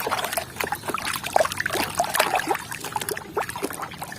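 Water trickling and splashing over a toy mask as it is washed, a busy patter of small drips and splashes.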